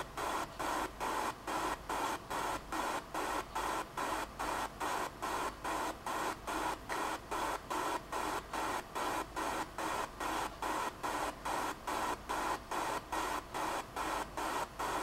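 A steady, rhythmic hiss pulsing about four times a second, with no speech over it.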